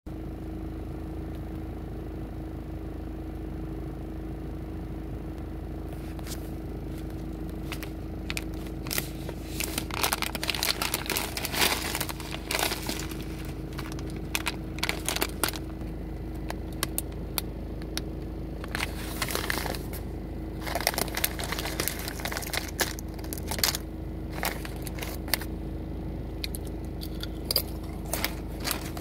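Foil-lined potato chip bag crinkling and crackling as it is handled and opened, and a hand rummages among the kettle-cooked chips inside. The crackling comes in irregular bursts starting several seconds in, loudest in two spells about a third of the way through and past halfway, over a steady low hum with a faint constant tone.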